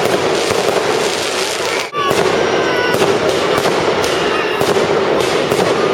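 Fireworks going off in a dense run of crackles and bangs, with short whistles gliding up and down in pitch.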